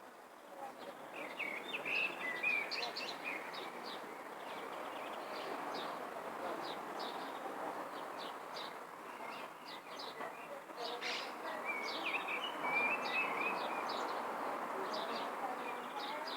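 Wild birds chirping and twittering, with many short chirps and a few warbling phrases throughout, over a steady background hiss.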